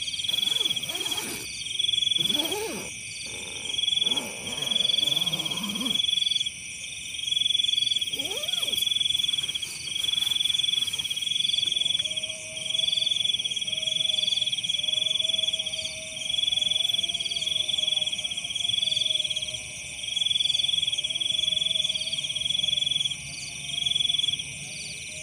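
Night chorus of frogs and insects: a steady high-pitched buzzing drone with a high call pulsing on and off about once a second.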